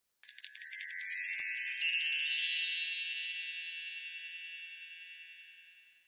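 Intro sound effect: a high-pitched chime-like shimmer with rising sweeps. It starts suddenly just after the beginning and fades out slowly over about five seconds.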